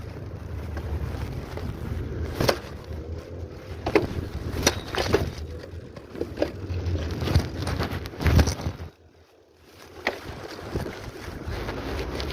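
Wind buffeting the microphone during a bicycle ride, with a low rumble and a few sharp knocks and rattles. The noise drops away briefly about nine seconds in.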